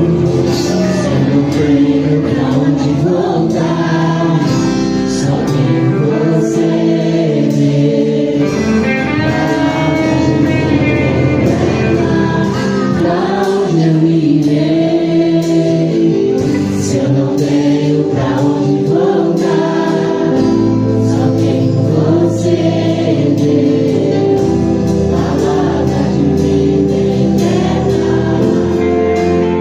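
Gospel worship music: a choir singing over a band, with drum hits keeping a steady beat.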